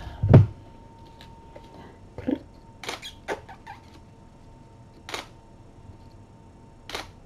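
A dull thump just after the start, then about five sharp clicks at irregular gaps of a second or two: a camera shutter firing.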